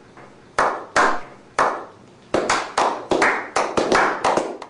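Men's hands clapping in a slow clap: single sharp claps with a short echoing tail, about half a second to a second apart at first. From a bit past halfway the claps come faster and closer together as several more people join in.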